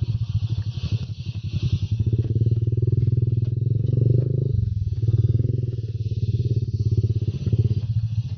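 Small motorcycle engine running at low speed, its exhaust pulses rapid and even, growing somewhat louder for a few seconds around the middle.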